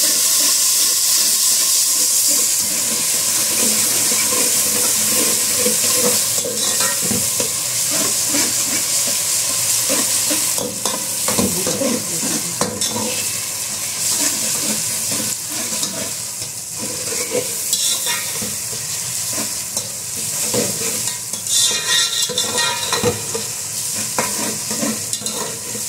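Sliced onions and whole spices sizzling in hot oil in an aluminium pot, with a metal spoon scraping and stirring them round the pan in irregular strokes, a few louder scrapes along the way. The onions are at the light, still-pink stage of frying.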